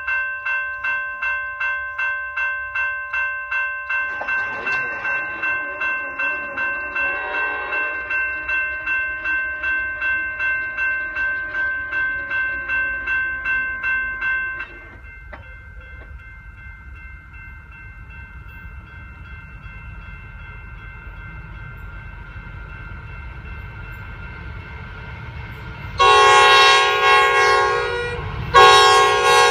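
A train's horn sounding loudly near the end: a long blast, a brief break, then another blast, over the low rumble of the approaching train. Before that, a ringing signal pulses about twice a second and stops about halfway through, and the train's rumble builds slowly after it stops.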